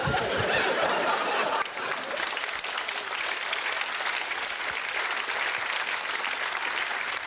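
Studio audience applauding, louder for about the first second and a half, then a steady clapping.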